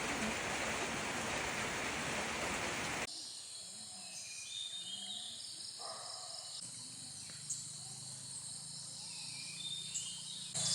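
A steady rushing hiss cuts off abruptly about three seconds in. Quieter forest ambience follows, with birds calling in short whistled notes over a faint low hum.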